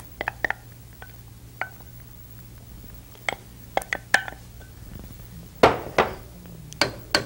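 Wooden spoon scraping and knocking against a plastic measuring jug and the cooking pot: a scatter of light clicks and taps, the loudest a few a little past the middle and near the end.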